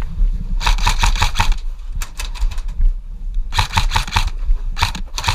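Airsoft guns firing in about four bursts of rapid clicking shots, over a constant low rumble.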